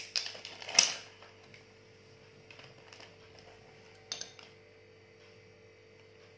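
Metal clinking as pliers and a steel spoon lure with its split ring and hook are handled: two sharp clinks in the first second, then a few lighter clinks, the last about four seconds in. A faint steady hum lies underneath.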